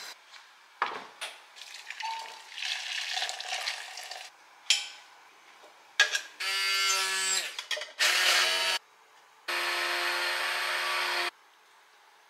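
A few light clatters and scrapes, then an electric blender motor runs in three bursts, the last and longest about two seconds, puréeing a red mixture in a plastic beaker.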